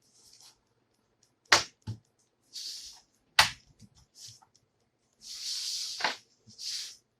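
Plastic laptop case being pried at with a metal screwdriver: three sharp plastic snaps or clicks, with short scraping sounds of the tool working along the seam between them.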